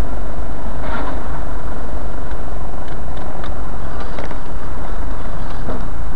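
Steady low rumble of a truck driving at road speed, heard from inside the cab through a dashcam microphone, with a few short light clicks.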